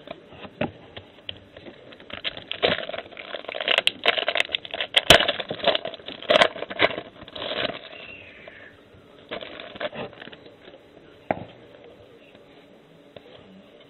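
Crackling and crinkling of trading-card pack wrappers and cards being handled. It is densest over several seconds in the middle, then thins to a few scattered rustles and clicks.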